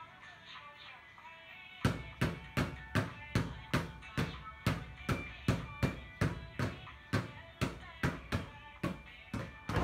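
Two basketballs dribbled at once on a tiled floor: a steady run of bounces, about two and a half a second, starting about two seconds in, over soft background music.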